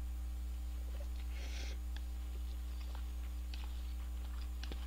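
A short slurp of noodles about a second and a half in, then chewing with small mouth clicks, over a steady low electrical hum.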